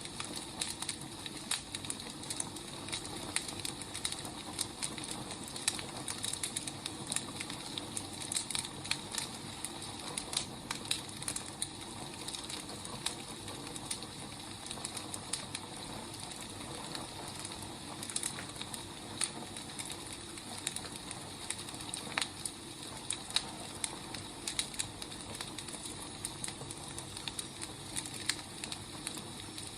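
Wood fire crackling: irregular sharp pops and snaps over a steady soft hiss of burning logs.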